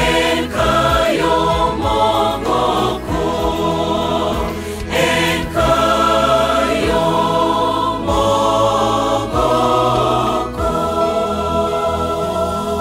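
Mixed choir singing a hymn in Ekegusii in harmony, led by women's voices on microphones, with electric guitar accompaniment. Near the end the voices drop out and the music carries on, slowly getting quieter.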